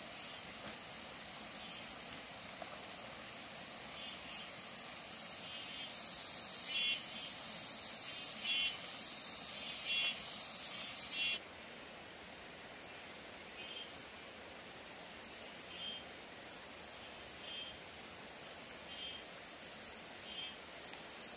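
Insects chirping: short pulsed chirps repeat every second and a half to two seconds over a steady high hiss. The chirps are loudest in the first half. About eleven seconds in, the hiss drops abruptly and fainter chirps carry on.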